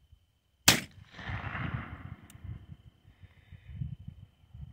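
A single shot from a Colt Wells Fargo .31 caliber black-powder pocket revolver, about half a second in, followed by an echo that rolls on for over a second. A faint click comes about halfway through.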